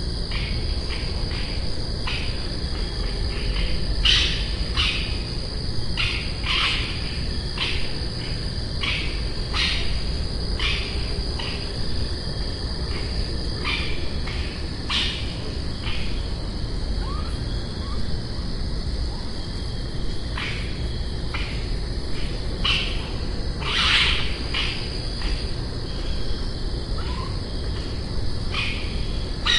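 Night insect chorus: crickets keep up a steady high trill, with many short chirps coming irregularly over it and a low rumble underneath.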